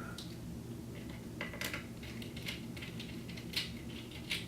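Small clicks and light scrapes of a wire being fitted into a receiver's ground terminal, a few separate ticks spread over several seconds, over a steady low hum.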